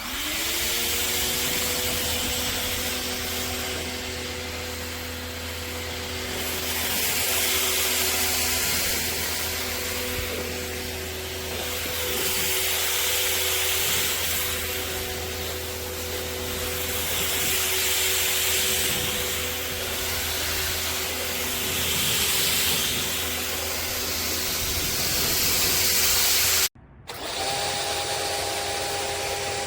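Pressure washer running with a water-spray hiss: a steady motor hum that spins up at the start, under spray noise that swells and fades every few seconds. It cuts out briefly near the end and comes back at a slightly different pitch.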